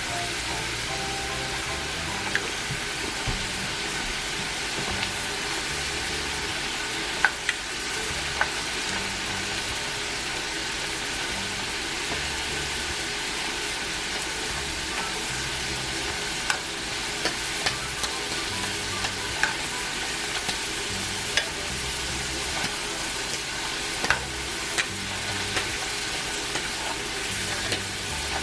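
Potato fries frying in hot oil in a pan: a steady sizzle with scattered sharp pops and crackles.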